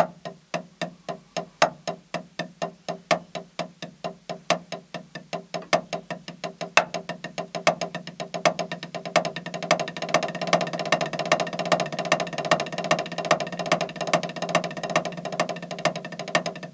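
Drumsticks playing the paradiddlediddle rudiment on a drum practice pad. It starts with slow, evenly spaced strokes and speeds up steadily into a fast, dense stream of strokes by about eight to ten seconds in.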